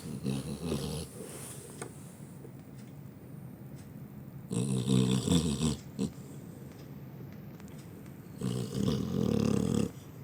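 A sleeping dog snoring, one loud snore about every four seconds.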